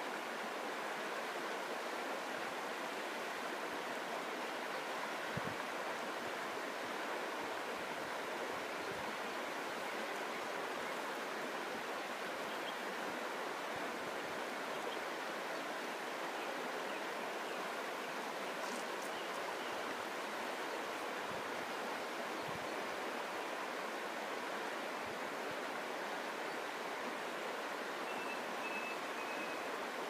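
Shallow river flowing steadily over a stony bed and around a line of stepping stones.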